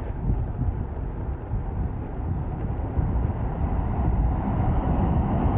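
Wind buffeting the microphone of a moving road bike: a steady low rumbling rush that grows slightly louder from about halfway through.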